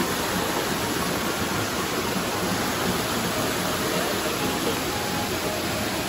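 Waterfall water rushing and splashing over rocks close by, a steady, unbroken wash of noise.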